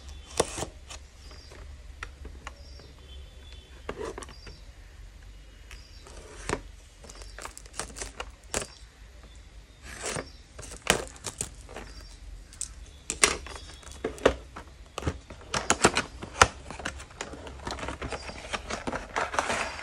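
Plastic shrink-wrap crinkling and tearing as it is peeled off a cardboard retail box, with the box handled and opened by hand: irregular crackles and clicks, busiest near the end.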